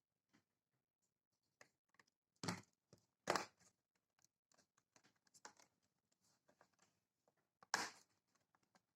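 Faint handling sounds of a laptop being worked on at the bench: scattered light clicks and rustles, with three sharper knocks about two and a half, three and a half and eight seconds in.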